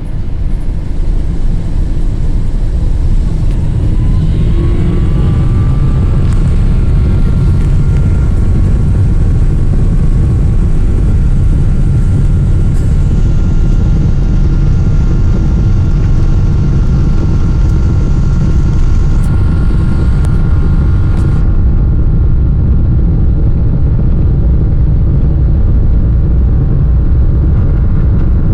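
Boeing 777-200ER engines and airframe heard from inside the cabin during takeoff: a loud, steady low rumble, with an engine tone that rises about four seconds in and settles into a steady whine. A higher hiss drops away suddenly about two-thirds of the way through.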